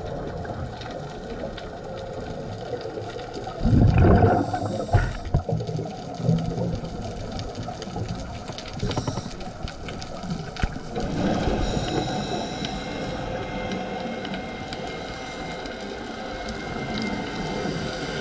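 Underwater sound picked up through a diving camera's housing: a muffled, hissing water noise with the bubbling of scuba divers' exhaled air. There is a loud bubbling rush about four seconds in. A faint steady whine joins about twelve seconds in.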